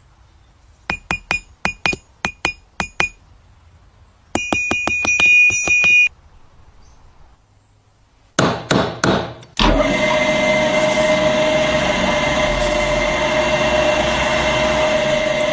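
Metal grain-mill parts struck with a hammer: a series of sharp, ringing taps, then a quicker run of ringing taps and a few more strikes. This is followed by about six seconds of steady mechanical whirring with a constant tone.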